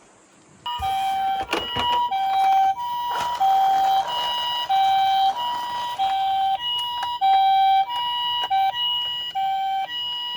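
Ambulance siren in the Japanese hi-lo style, alternating steadily between two notes, from a toy ambulance. It starts about a second in, with a few clicks over it.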